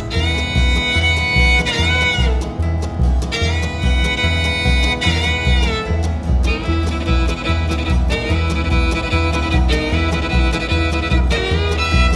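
Bluegrass-style music with a fiddle melody over guitar and a steady bass beat.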